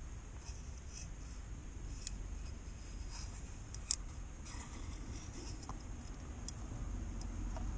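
Small metal pick scratching and clicking against a plastic oil filter housing cap while the old, perished rubber seal is dug out of its groove. The light scrapes and ticks are irregular, with one sharper click about four seconds in.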